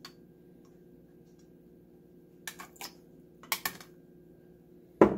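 Light plastic clicks and taps from handling a plastic adjustable measuring spoon and condiment bottles, in two short clusters past the middle, then one louder knock near the end.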